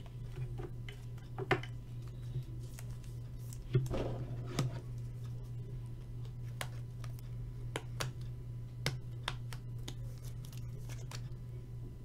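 Trading cards and plastic card sleeves being handled: scattered small clicks, taps and rustles, a few sharper ones, over a steady low hum.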